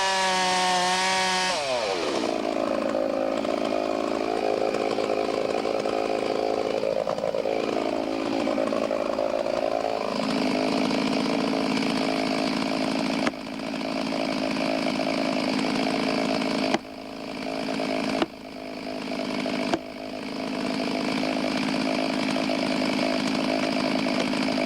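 Chainsaw at full throttle, its pitch sagging and recovering as the chain bites under load while cutting wood. The sound drops sharply four times in the second half, each time picking back up.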